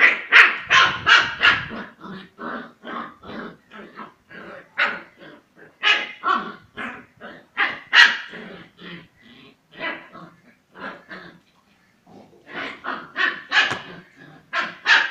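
Kombai dogs play-fighting, barking and growling in quick short bursts, several a second, with a brief pause about three quarters of the way through.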